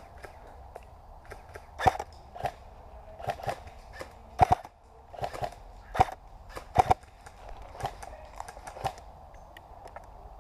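Airsoft guns firing single shots at irregular intervals: a string of sharp cracks, the loudest about 2, 4.5, 6 and 7 seconds in, with fainter ones between.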